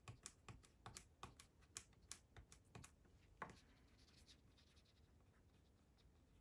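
Pencil on watercolour paper, sketching a string of short, quick strokes, about three a second, that die away after about three and a half seconds.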